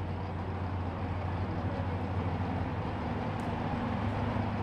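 An engine idling, a steady low hum.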